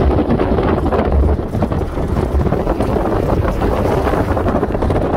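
Car driving over snowy ground: a loud, steady rumble of engine and tyre noise with wind buffeting the microphone.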